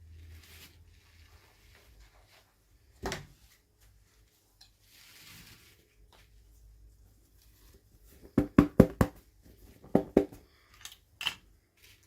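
Small plastic toy pieces and packaging being handled during an unboxing: soft rustles, a single click, then a quick run of about five sharp taps and a few more taps near the end.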